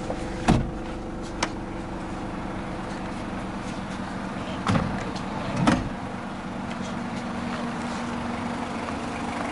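Toyota 1KZ-TE 3.0 L turbo-diesel idling steadily, heard from inside the cabin, with a few knocks and thumps: one shortly after the start and two close together past the middle.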